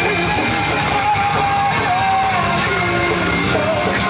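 Live post-hardcore band playing: distorted guitars and drums at a loud, steady level, with a held, wavering vocal or lead-guitar line over them.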